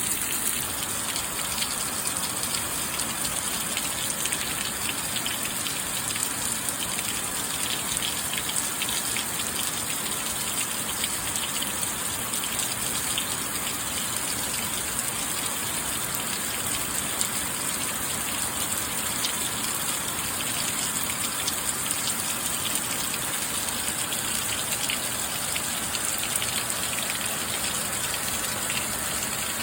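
Steady rainfall: an even hiss of rain with many fine drop ticks, strongest in the high treble.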